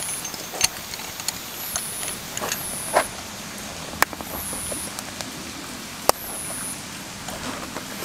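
A camping lamp and its hard carrying case being handled: a few sharp clicks and knocks with light rustling. A short high chirp comes back every couple of seconds over a faint steady background.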